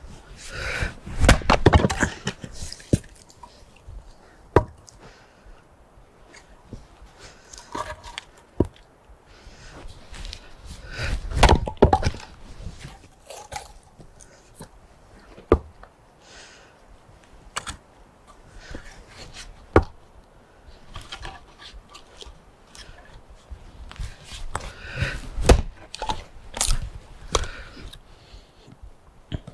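Axe splitting firewood on a wooden chopping block: a sharp crack of a strike every few seconds, some in quick clusters as the split pieces knock together and fall.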